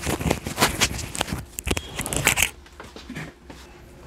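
Plastic wrapping crinkling and crackling as a laptop charger is pulled out of its bag: dense crackles for about two and a half seconds, then only faint handling.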